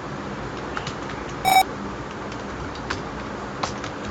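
A short, buzzy computer beep lasting about a third of a second, about one and a half seconds in. A few faint, scattered clicks sound around it.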